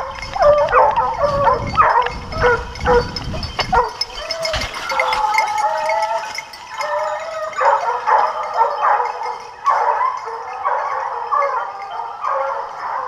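A pack of scent hounds baying on a wild boar's trail, many voices overlapping without a break, with a low rumble in the first few seconds.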